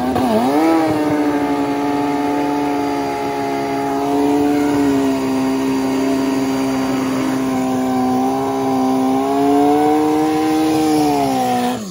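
Turbocharged Honda CBR1000RR drag bike's inline-four doing a burnout, the engine held at high, nearly steady revs while the rear tyre spins. The revs dip briefly and climb back about half a second in.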